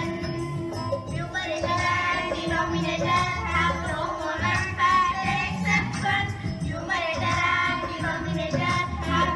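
A group of schoolchildren singing a song about fractions, with instrumental accompaniment.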